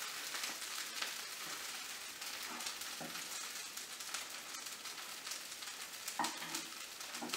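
A buttered sandwich frying in a nonstick skillet: a steady, even sizzle, with a few light knocks of a spatula against the pan.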